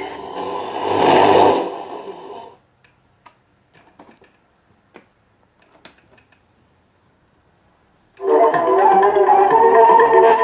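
Music playing, cutting off abruptly about two and a half seconds in. A few faint clicks and one sharp tick fall in the silence that follows, and the music comes back suddenly near the end.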